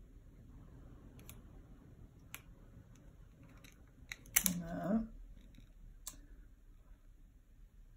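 Light, scattered clicks and taps of small paper decoupage pieces being handled and pressed into place on a card. About halfway through there is a brief voiced sound, the loudest thing here.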